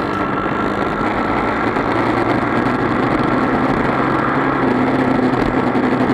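250cc four-stroke racing motorcycle engines running, a steady engine note that rises a little in pitch partway through.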